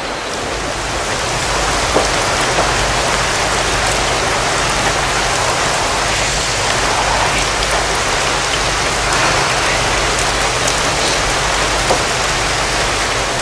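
Heavy rain pouring steadily, with a couple of faint ticks.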